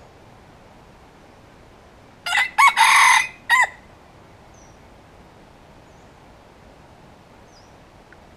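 Wild red junglefowl rooster crowing once: a short, clipped crow of about a second and a half, starting a little over two seconds in.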